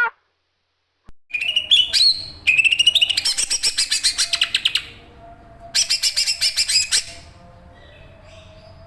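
Bird calls in two bursts of fast, high chattering notes: the first lasts about three and a half seconds, the second about a second.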